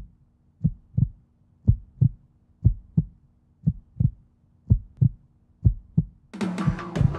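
Heartbeat sound effect: low double thumps, lub-dub, about one pair a second over a faint steady hum. Near the end, music comes in over it.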